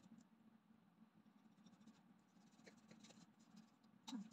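Near silence: a faint low hum, with a few faint taps and a short knock near the end, as a kitchen knife meets a plastic cutting board.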